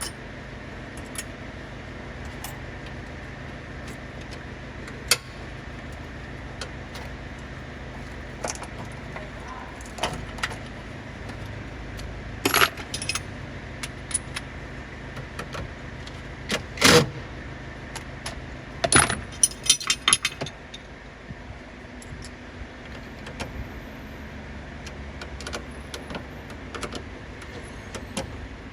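Scattered metallic clinks and clanks of hand tools and metal parts being handled during hybrid battery pack work, over a steady low hum. The loudest clanks come in a cluster around the middle.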